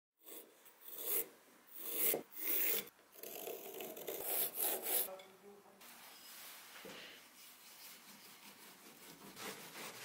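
A carving gouge being stropped on a leather strop loaded with white honing compound: repeated strokes of steel rubbing over leather, louder in the first half and softer from about six seconds in.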